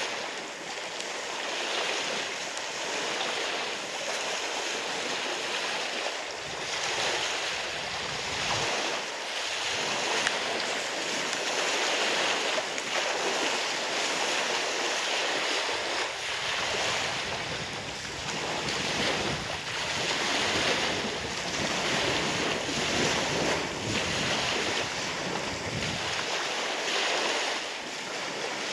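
Small waves breaking and washing up on a sandy beach, a steady hiss of surf that swells and ebbs, with wind gusting on the microphone now and then.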